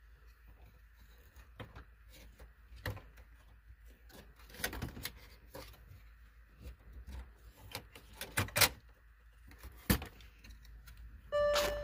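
Scattered clicks and knocks of plastic dashboard trim and control pieces being handled and pressed into place around a car stereo, the loudest a quick pair about two-thirds of the way in and another shortly after. Near the end a steady electronic beep tone starts, breaks off briefly, and resumes.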